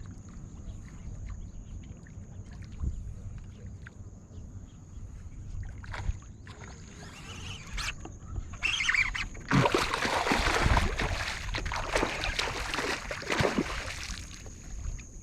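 Light wind and small knocks on a kayak with a faint steady high whine, then about two-thirds of the way in loud water splashing and sloshing begins and continues: a hooked flounder thrashing at the surface beside the kayak.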